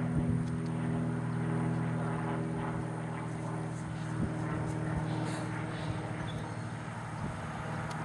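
A motor droning steadily at one constant pitch, with a few faint clicks over it.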